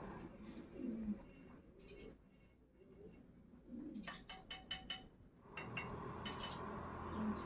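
Pigeons cooing, with a run of short, sharp bird chirps in the middle, over a steady background hiss that drops away for a few seconds and then comes back.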